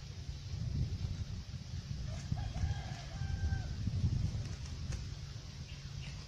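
A rooster crows once, about two seconds in, a single call lasting just over a second, over a steady low rumble. A brief high bird chirp comes near the end.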